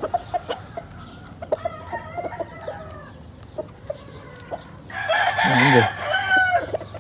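Gamecocks clucking and crowing, faint for the first few seconds, with a louder crow about five seconds in.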